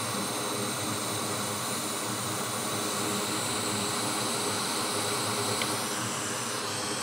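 Quick 861DW hot air rework station blowing a steady hiss of hot air onto a flux-covered CD3215 chip, reflowing it.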